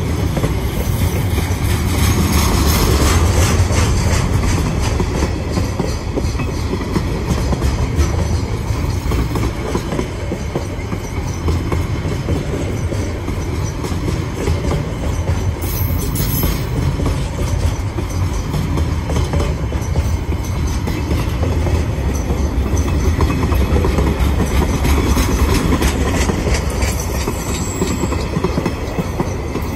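Freight train of container and tank-container wagons passing close by: a loud, steady rumble of wheels on the rails with a constant clatter of rail joints.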